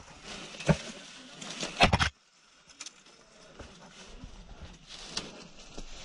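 Footsteps crunching through dry leaf litter and brush, with two sharp snaps in the first two seconds. The sound drops away abruptly about two seconds in, leaving faint rustling and scattered ticks.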